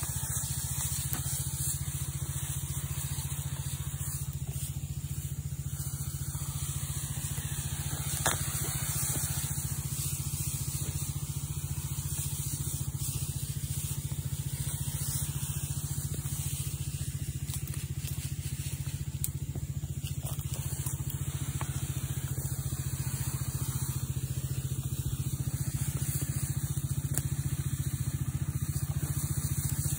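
Small Robin 3.5 hp petrol engine running steadily, driving a Shancin power sprayer pump that feeds a long spray hose. A single brief click about eight seconds in.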